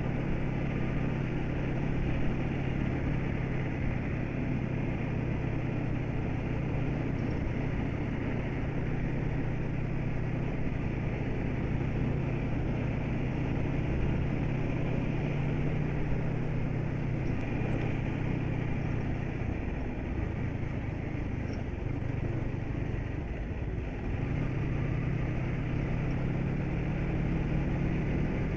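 Vehicle engine and road noise heard from inside the cabin while driving: a steady low drone that drops twice, briefly, in the last third before settling back.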